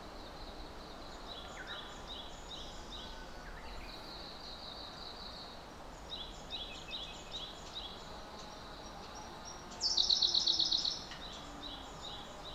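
Birds chirping in repeated short high notes over steady background noise, with a louder rapid run of chirps about ten seconds in.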